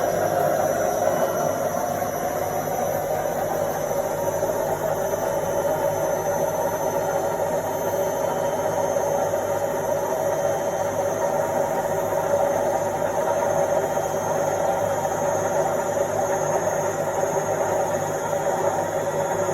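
Indesit washing machine on its spin cycle: the drum spinning at a steady speed with a constant whirring hum and vibration.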